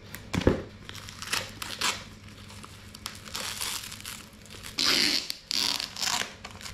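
Plastic wrap and paper packaging of a parcel crinkling and tearing as it is cut open with scissors, in irregular bursts that are loudest near the end. A single sharp knock about half a second in.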